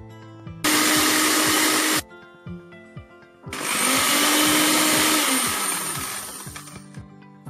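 Countertop blender motor running in two bursts, about a second and a half and then about three seconds, puréeing a thick chickpea and olive-oil paste for hummus. The second burst winds down slowly. Background music with a beat plays underneath.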